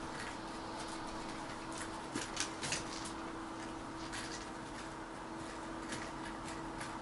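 A kitten moving about inside a wicker cat house, its claws scratching on the wicker: a cluster of light scratching clicks about two to three seconds in and a few more scattered later, over steady room hiss with a faint hum.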